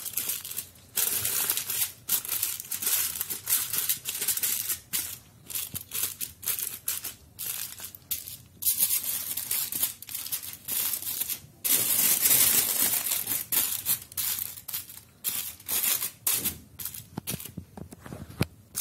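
Aluminium foil crinkling and rustling in irregular stop-start bursts as hands fold its sides up around a fish filling.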